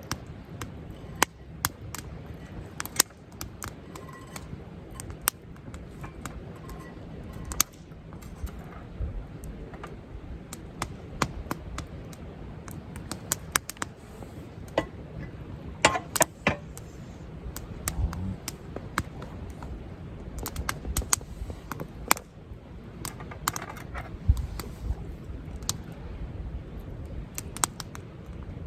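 Campfire wood crackling, with irregular sharp pops and snaps, over the steady murmur of a nearby river.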